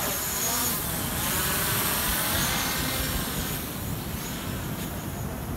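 Quadcopter drone's propellers whirring as it takes off and climbs, a steady whine that grows a little fainter in the second half as it moves away.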